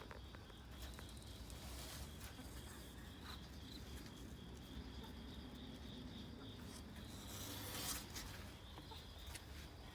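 Faint outdoor background: a steady, high insect trill, with a brief rustle about eight seconds in.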